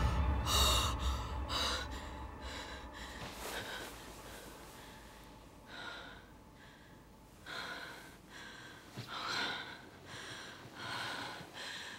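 A woman breathing heavily in quick, even breaths that fade away. About six seconds in they return as a series of separate gasping breaths, roughly one a second.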